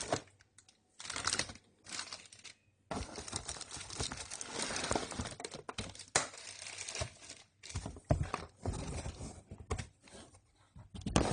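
Packaging being handled and pulled from a box: crinkling and rustling of wrapping material in irregular bursts with short pauses, and a few sharp knocks.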